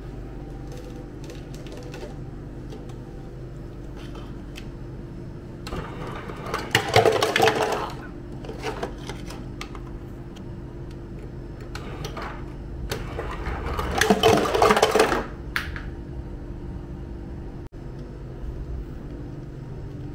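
Hoshizaki ice dispenser dropping ice cubes into a plastic cup, two rattling runs of about two seconds each, over a steady low machine hum.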